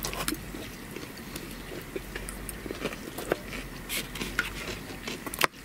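Eating and table noise: scattered light clicks and taps of forks on plates and dishes, at an uneven pace, with a louder click near the end.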